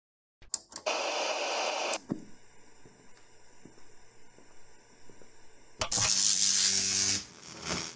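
Sound effect of old television static: a click, then a burst of hissing noise, quiet crackling, and a second loud burst of hiss with a low hum under it.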